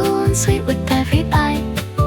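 Soft J-pop / anime-pop song: held keyboard chords and melody notes over a steady beat.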